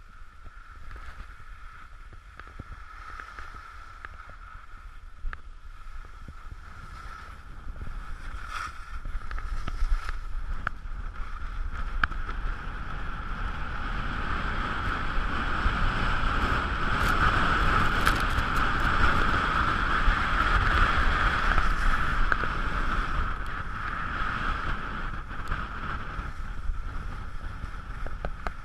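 Wind noise rushing over the camera microphone, with skis sliding and scraping on packed snow, and a few clicks. It builds up about halfway through as the downhill speed rises, then eases off toward the end.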